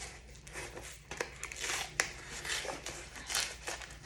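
Gift packaging being opened by hand: irregular crinkling and tearing, with a few sharp clicks.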